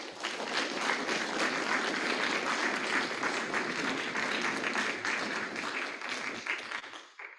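Audience applauding: many people clapping together, building up at once and then fading away near the end.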